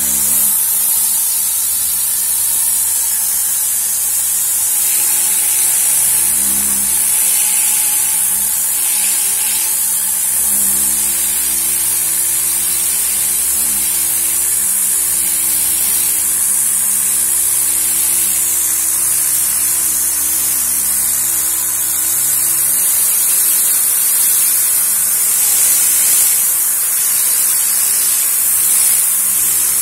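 Tornador air-pulse cleaning gun blowing high-pressure compressed air and cleaning solution into a car headliner: a loud, steady hiss.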